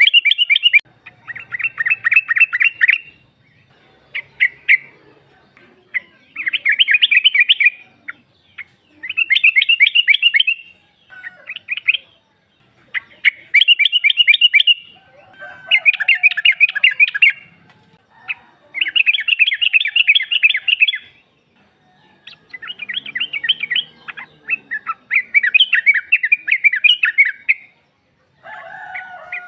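Female yellow-vented bulbul (trucukan) calling in repeated bursts of rapid chattering notes, each burst one to two seconds long, with short pauses between them. It is the call a female gives to draw a male to answer.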